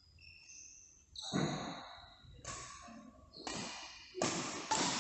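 Badminton play: short high shoe squeaks on the court floor, then a run of sharp hits, about five, each dying away, the last ones loudest.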